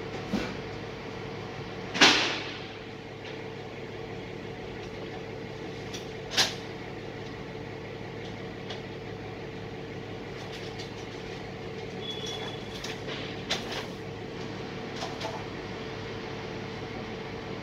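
Heavy truck engine and its hydraulics running steadily with a held hum, broken by several sharp bangs, the loudest about two seconds in and another at about six seconds.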